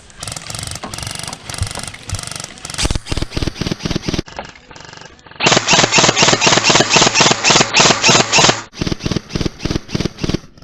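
Airsoft gun firing in repeated strings of shots. The loudest and fastest run comes after a short lull in the middle, about seven shots a second for some three seconds.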